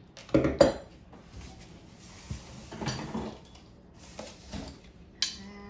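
A heavy metal dragonfly door knocker is handled and set down on a wooden table: a few clanks and knocks of metal on wood, the loudest about half a second in.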